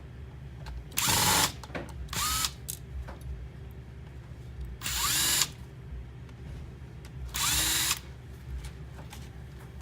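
A power screwdriver with a small Phillips bit runs in four short bursts, its motor whirring up and winding down each time as it drives out small screws from a circuit board.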